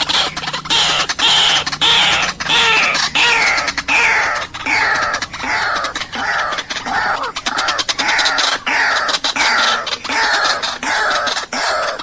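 White-breasted waterhen calling: a loud, hoarse note repeated about twice a second, each note falling in pitch.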